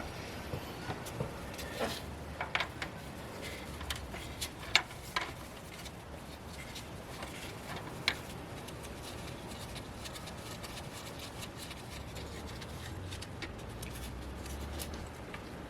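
Irregular light metallic clicks and knocks, with one sharper knock about five seconds in, from hand work at the bottom end of a Holden Rodeo 3.6 V6 with the sump off, around the number 1 connecting rod whose big-end bearing has excessive play.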